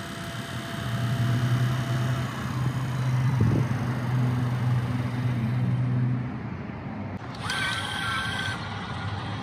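24-volt Minn Kota Ulterra bow-mount trolling motor running out of the water, its electric motor humming steadily as the propeller spins in the air; the hum stops about six seconds in. A short high tone sounds near the end.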